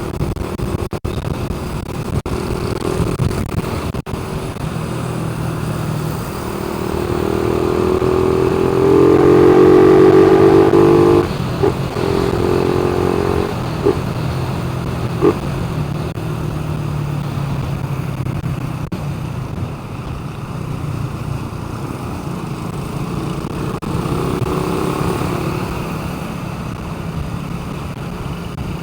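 A vehicle engine running steadily. It grows louder for a few seconds and then drops back abruptly about eleven seconds in, followed by a few short clicks. It swells again briefly near the end.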